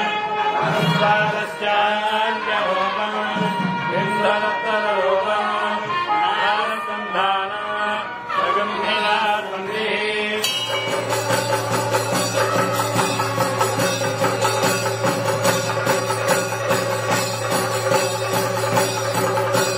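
Devotional music: chanted singing over a steady drone. About ten seconds in it cuts to a different piece with a steady drone and quick, dense percussion.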